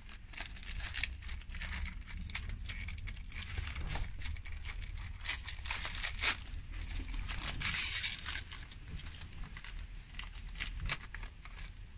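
Thin metallic foil wrapper crinkling and tearing as it is peeled open by hand, in quick irregular crackles with a few louder rips.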